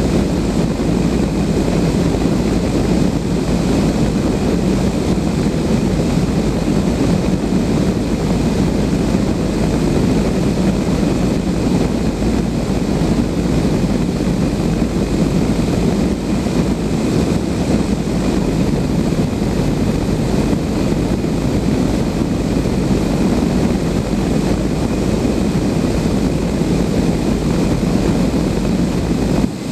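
Steady rush of air and wind on the microphone in the cockpit of a Blanik L-13 glider, with no engine.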